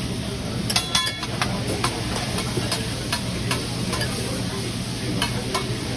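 Food sizzling on a hibachi flat-top griddle while metal spatulas scrape and clink against the steel, with a quick run of ringing clanks about a second in.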